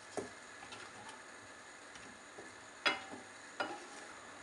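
Wooden spoon stirring gravy in a pan, knocking against the pan three times, the second knock the loudest, over a faint steady sizzle.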